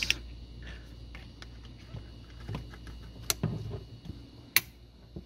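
Clicks and rubbing of a rubber drain hose and a spring hose clamp being worked onto a washer's drain pump outlet with pliers, with a few sharp clicks, the sharpest about three and four and a half seconds in.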